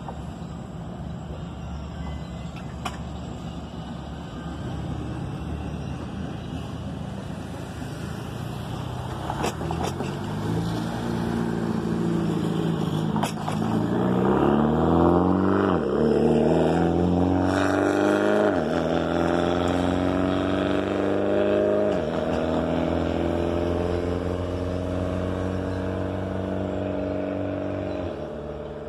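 A car accelerating hard through the gears: the engine note climbs steadily, then drops back at each upshift, four or five times, getting loudest around the middle and then fading as it pulls away.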